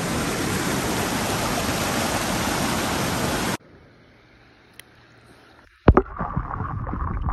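Creek water rushing over boulders and a small cascade, a steady loud rush that cuts off about three and a half seconds in. After a short, nearly quiet stretch, a sharp knock and then muffled knocks and sloshing from a camera held underwater.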